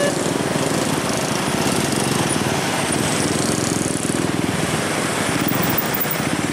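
Many small motorcycle and scooter engines running and pulling away together in a dense, steady mass of engine noise.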